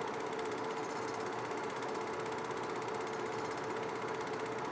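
Home-movie film projector running: a steady, fast, even clatter from the film mechanism over a constant hum.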